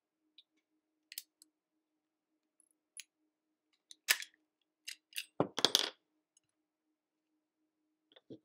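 Umarex Makarov air pistol's slide being worked and slid off the frame. Scattered small clicks, then a short burst of louder clicking and metal rattling about five seconds in, and one more click near the end.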